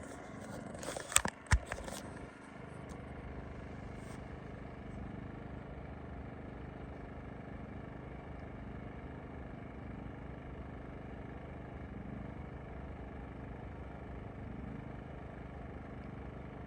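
Powersmart 2500 gas inverter generator running steadily in eco mode, a low, even hum with no change in speed. A few sharp knocks sound in the first two seconds.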